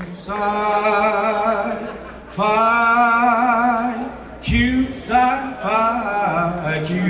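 A man singing solo and unaccompanied in long held notes with vibrato, in about three phrases; the last one starts with a downward slide.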